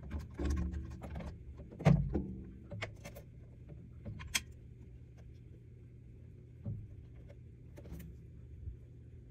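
Knocks, taps and clicks of drum hardware being handled during setup. The loudest knock comes about two seconds in and rings briefly, with a sharp click a couple of seconds later, over a steady low hum.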